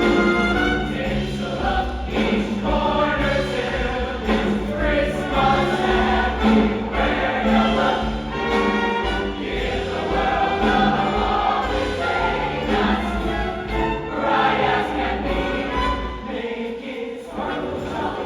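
A choir singing with instrumental accompaniment and a steady bass line. The accompaniment thins out briefly near the end.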